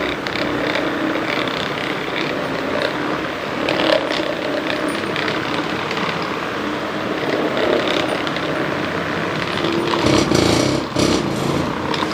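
A small motor running steadily, with a change in its sound about ten seconds in.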